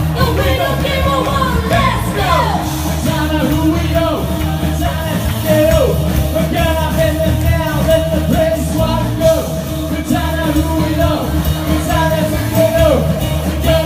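Live band music with a singer, the voice gliding over a steady beat and bass.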